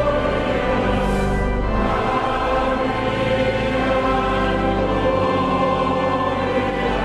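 Music: a choir singing long held chords, changing every second or two.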